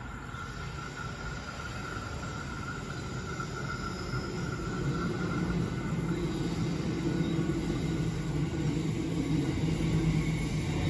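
Queensland Rail electric multiple-unit train approaching along the track, its rumble and low hum growing steadily louder as it nears. A steady high ringing runs through the first half.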